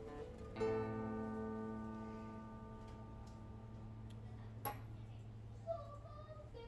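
Background music: a plucked string note rings out about half a second in and slowly fades. Two short sharp clicks come near the end.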